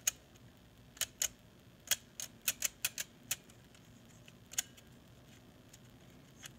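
Hard plastic parts clicking and tapping as they are handled and pushed together: about a dozen sharp clicks in the first three and a half seconds, and one more about four and a half seconds in.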